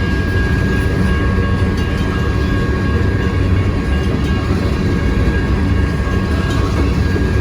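Freight train of grain hopper cars rolling past: a steady, loud, low rumble of wheels on rail, with a faint high steady ring running through it.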